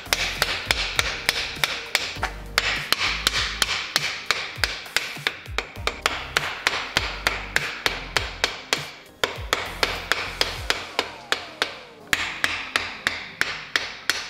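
Wooden stick rapping the main bearing caps of a 1.6 L Miata engine block to seat them, a fast, even run of sharp knocks at about four a second.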